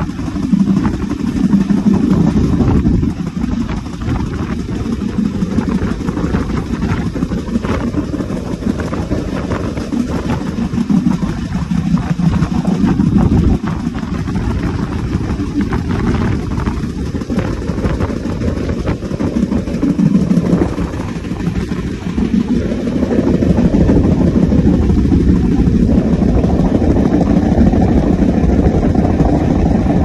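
Sri Lanka Railways class S13 diesel multiple unit running on the track, with a repeated knocking from a wheel that has a flat spot worn on its tread. The running noise grows louder about three-quarters of the way in.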